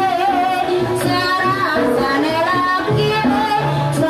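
Ebeg (Banyumasan kuda lumping) accompaniment music: a woman singing in a wavering, ornamented line over a traditional percussion-and-instrument ensemble, playing without a break.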